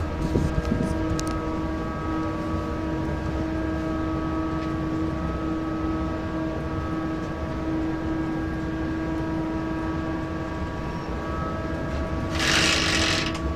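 Cab noise of a Class 20E electric locomotive hauling a heavy loaded train: a steady low rumble under a constant whine of several steady tones. Near the end a loud hiss lasts about a second.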